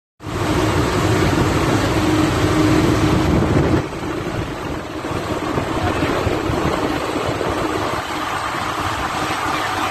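Swaraj 744 FE tractor's three-cylinder diesel engine running as it drives along the road hauling a loaded trailer, with road and wind noise. Its steady engine note drops away about four seconds in, leaving mostly a duller road rumble.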